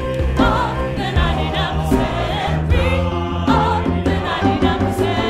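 Choir singing gospel-style music over a steady low accompaniment.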